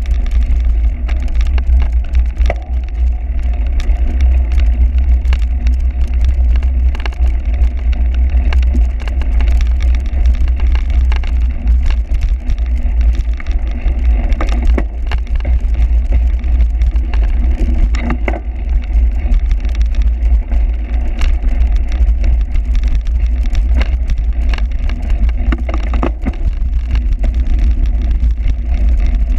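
Steady heavy wind rumble on the microphone, mixed with frequent clicks and knocks of a cyclocross bike rattling over rough ground.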